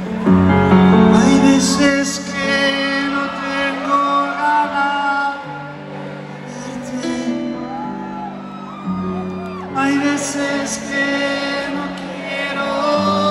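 Live rock band heard over a large concert PA from the crowd: keyboards, bass and drums, with a singing voice and cymbal crashes about two seconds in and again near the end.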